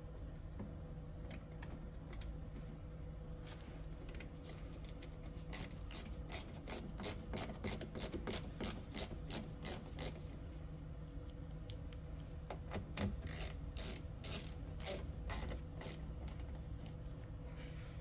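Hand tool clicking in irregular runs, with some rubbing and scraping, as screws are driven into a Jeep door's interior panel. The clicks start a few seconds in and come thickest in the middle.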